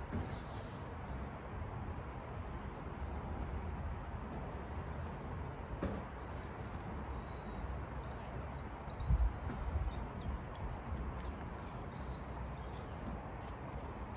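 Small birds chirping in short, scattered calls over a steady low rumble. A brief low thump about nine seconds in.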